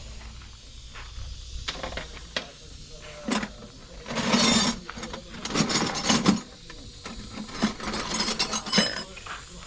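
Workshop clatter of metal work: irregular clicks, knocks and scraping, with louder rattling bursts about four seconds in, around six seconds and near the end.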